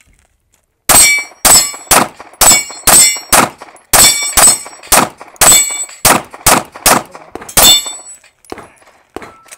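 Pistol fired in a rapid string of about fourteen shots, roughly two a second, each followed by the clang of a steel target plate being hit. Near the end a couple of fainter clicks follow.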